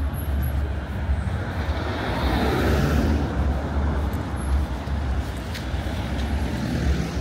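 Street traffic on a wet road: car tyres hiss on the wet surface, swelling and fading as a car passes about two to three seconds in, over a steady low rumble.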